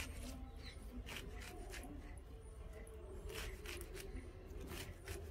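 Small knife cutting through handfuls of fresh mustard greens for saag, a run of short, irregular cutting sounds.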